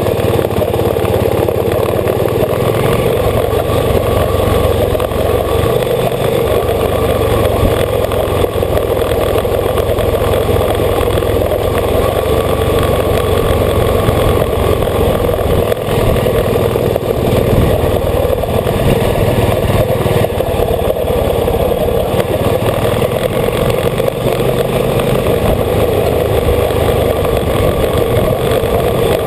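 Old motorcycle's engine running steadily while the bike is ridden along, heard close up from a camera mounted on the bike.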